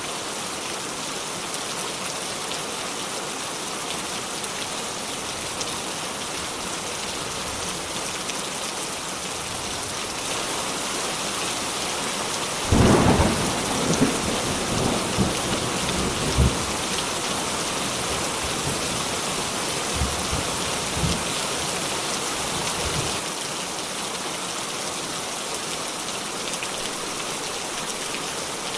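Steady rain falling, with a sudden thunderclap a little under halfway through, followed by rolling thunder with several sharper cracks that dies away about ten seconds later.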